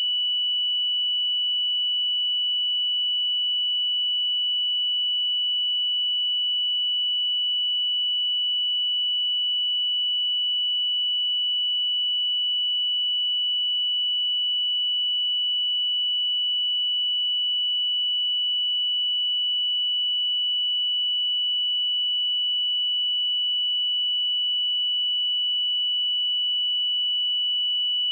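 A steady 2958 Hz sine-wave test tone: one pure high-pitched tone held at constant pitch and level.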